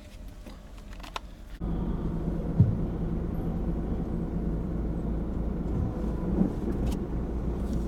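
A few faint clicks, then, about a second and a half in, an abrupt change to a steady low rumble of engines on a ferry's enclosed vehicle deck, heard from inside a car, with one brief low thump soon after.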